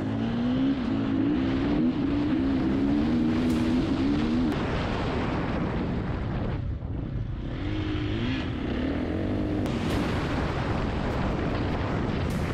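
Off-road rally motorcycle engine under way, its revs climbing and falling several times, over wind and tyre noise. The engine eases off briefly about halfway through, then picks up again, with a few sharp ticks near the end.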